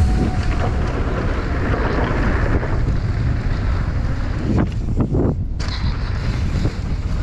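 Wind buffeting a camera microphone during a fast mountain-bike ride, a loud steady rumble and rush.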